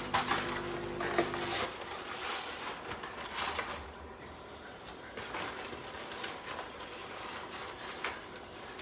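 Kitchen handling sounds: scattered clunks and rustles over a low background noise. A steady hum stops about a second and a half in.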